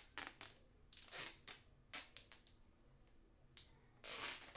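Clear adhesive tape being pulled off the roll and pressed around a head. Short tearing rasps come in a cluster during the first half, and a longer ripping hiss comes about four seconds in.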